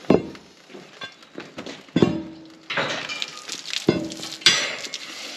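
Four sharp metal clanks on the bale spike's steelwork, the first three about two seconds apart and the last soon after, two of them ringing briefly. A steady hiss sets in about halfway through.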